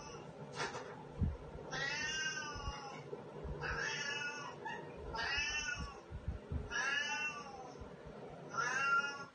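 Cat meowing: five long, drawn-out meows of about a second each, each rising and then falling in pitch, with short pauses between them.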